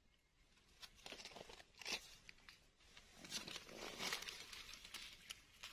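Faint rustling and crackling of dry fallen leaves, with scattered small scrapes, starting about a second in as hands and a knife work in the leaf litter to pick mushrooms.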